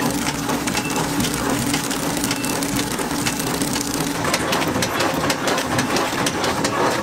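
Food packaging machine running, with a dense crackling clatter as dried food blocks are fed through and a steady low hum over the first few seconds.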